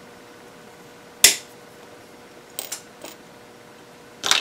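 Small pieces of dichroic glass sizzle stick clicking sharply as they are handled and set down on a black glass blank: a handful of separate clicks, the loudest about a second in and another strong one near the end.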